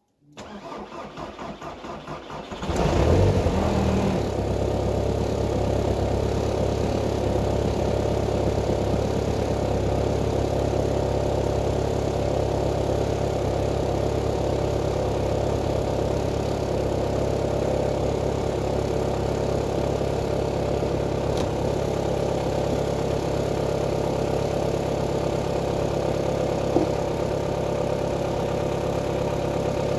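VW Passat B4's 1.9 TDI four-cylinder turbodiesel cold-started at −10 °C with no exhaust system fitted. The starter cranks for about two and a half seconds, the engine catches with a brief flare, then settles into a steady unmuffled idle.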